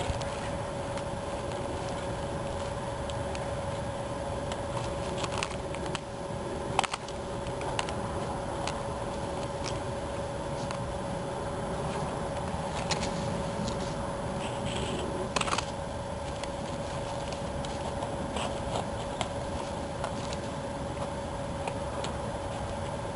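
Vinyl roof material being handled and trimmed: scattered short snips, scrapes and rustles, with a couple of louder knocks, over a steady background hum.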